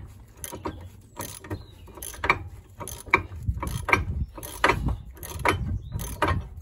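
Hand ratchet wrench clicking in short, irregular strokes as a loosened 15 mm brake caliper bracket bolt is wound out.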